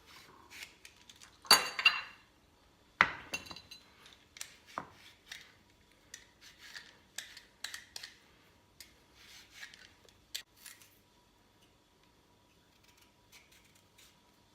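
Kitchen knife cutting a piece of fresh ginger root on a cutting board: irregular knocks and clicks, the loudest about one and a half and three seconds in, then lighter ticks that thin out after about eleven seconds.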